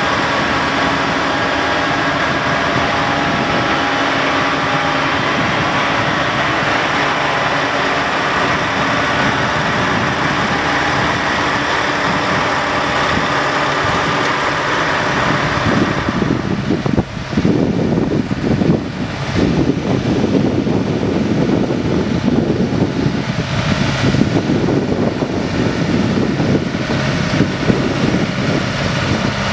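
Diesel engines of heavy-haul trucks running as a long multi-axle trailer convoy rolls slowly past. About halfway through the sound turns lower and rougher.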